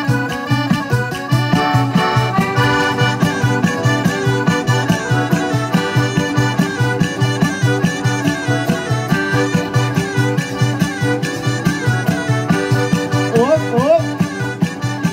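Live folk band playing: accordion carrying the tune over acoustic guitar and a steady fast drum beat. A short rising glide sounds near the end.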